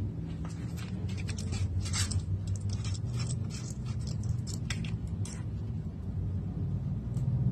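Small clicks, rattles and scrapes of a pit bike carburetor being detached and handled by hand, mostly in the first few seconds, over a steady low hum.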